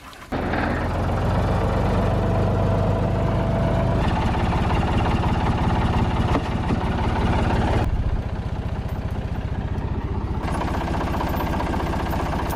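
Small engine running steadily, starting abruptly about a third of a second in and shifting in tone twice.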